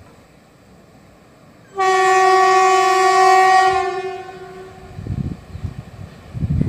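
Horn of an approaching express train's locomotive: one long, steady blast of about two and a half seconds, starting about two seconds in and fading away at the end.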